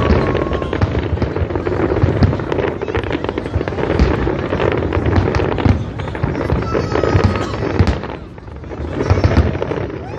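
Fireworks going off in rapid succession, a dense run of bangs and crackling, with a high whistling tone about seven seconds in and a short lull near the end.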